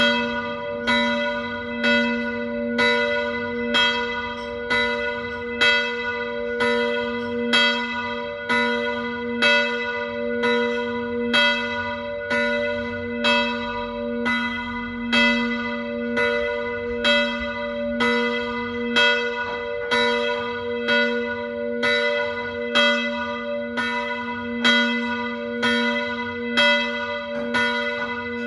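Church bells ringing a swinging peal, strokes coming about once a second with a steady ringing hum carried between them.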